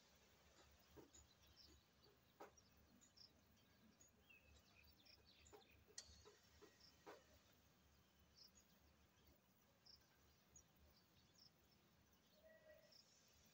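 Near silence, with a few faint clicks and knocks from hand work on the generator, the sharpest about six seconds in, and faint short bird chirps.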